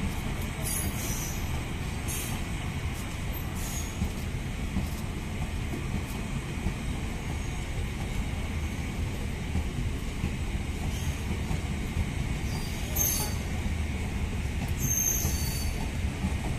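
South Bihar Superfast Express passenger coaches rolling past, their wheels on the rails giving a steady low rumble. Short high-pitched wheel squeals cut in a few times.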